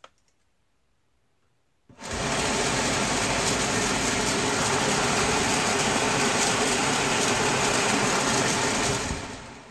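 Car heater blower motor in a freshly tacked-together sheet-metal housing, bench-tested: it switches on suddenly about two seconds in and runs steadily with a loud rush of air, then spins down near the end.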